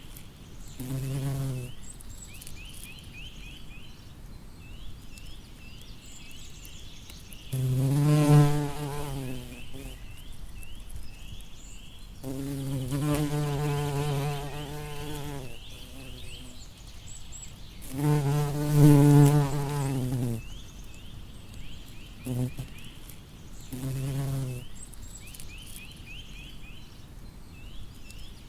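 Bumblebee buzzing as it flies past again and again, its low hum swelling and fading with each pass, loudest about 8 and 19 seconds in. Between the passes there is a faint, high, repeated chirping.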